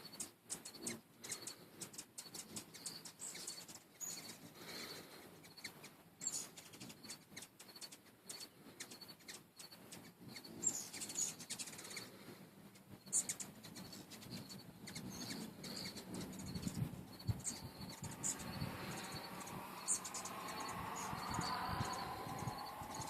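Hummingbirds around a feeder giving rapid high chips and chirps, with the buzz of their wings as they hover. A low hum builds up over the last few seconds.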